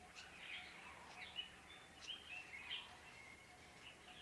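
Faint birds chirping in short, scattered calls over a quiet background hiss.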